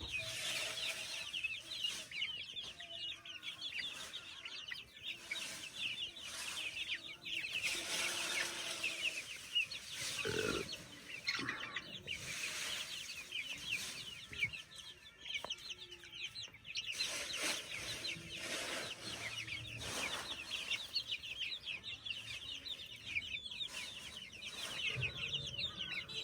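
A flock of baby chicks peeping continuously: a dense chorus of many short, high chirps, each falling in pitch, overlapping with scattered light clicks.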